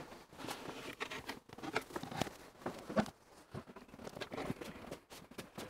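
Light knocks and scuffs from a wooden cabinet unit being handled as it is lifted into the back of a van, with shuffling footsteps. A louder knock comes about three seconds in.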